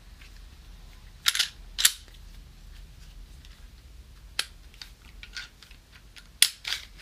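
Smith & Wesson M&P Shield 9mm pistol being handled for field-stripping: a series of sharp metallic clicks and snaps from the slide and takedown parts, the loudest about two seconds in and near the end.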